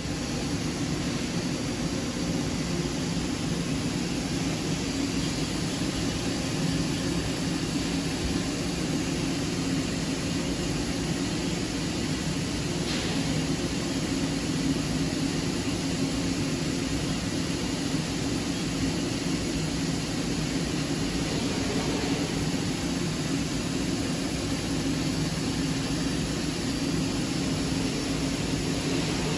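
Mori Seiki MT3500 CNC turning center running under power: a steady mechanical hum and whir.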